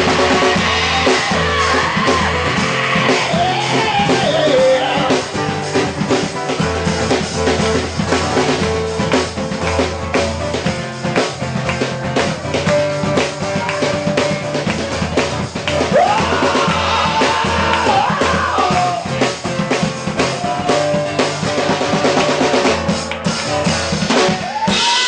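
Live band playing a song: drum kit, strummed acoustic guitar and bass, with a voice singing near the start and again a little past the middle.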